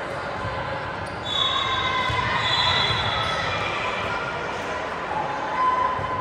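Indoor volleyball rally in a gym: the ball being struck and bouncing, echoing in the hall, with shouts of players and spectators that grow louder from about a second in.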